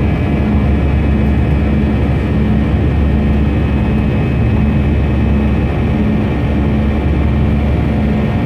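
Steady engine and airflow noise of a passenger aircraft heard inside the cabin, heaviest in the low range, with a faint steady high whine over it.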